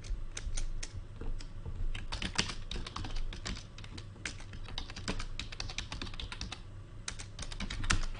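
Typing on a computer keyboard: quick, uneven runs of key clicks, with one louder keystroke near the end.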